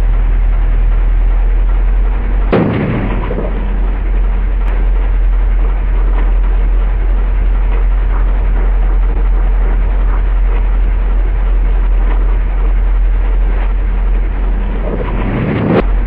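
A silicone hose used as a Ford Focus power steering pipe bursts with one loud bang about two and a half seconds in, over the steady running of the car's engine. Another sudden loud burst of sound comes near the end.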